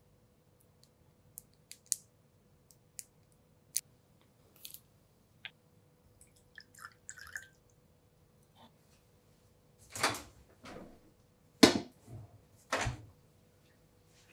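Small ticks and taps from a glass bowl on a kitchen scale as honey and water are measured into it for a syrup, with a brief splash-like patter in the middle. Three louder knocks follow near the end as the bowl is handled and taken away.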